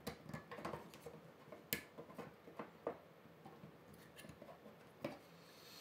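Parts of a PiBox enclosure being handled and fitted back together by hand: faint, scattered clicks and rubs, the sharpest a little under two seconds in.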